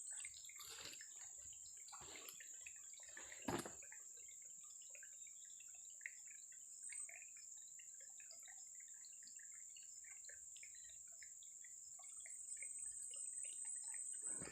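Faint outdoor ambience of a steady, high insect chorus with scattered small drips and water ticks, and a few soft knocks in the first few seconds.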